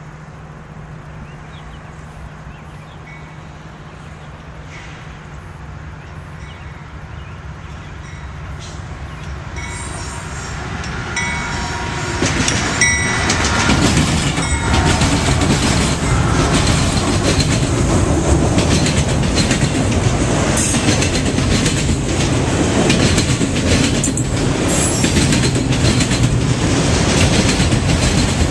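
Diesel-hauled freight train approaching and passing. It grows steadily louder over the first dozen seconds as the locomotives come up and go by, then autorack cars roll past with a steady clickety-clack of wheels over rail joints.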